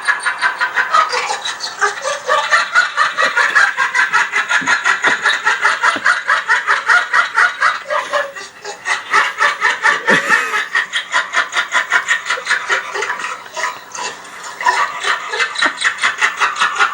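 A person making rapid, rhythmic breathy snickering sounds, several a second, broken by short pauses about eight and fourteen seconds in.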